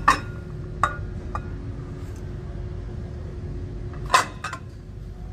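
Stacked ceramic bowls and plate clinking against each other as they are handled: sharp clinks right at the start, two lighter ones about a second in, and a quick cluster about four seconds in. A steady low hum runs underneath.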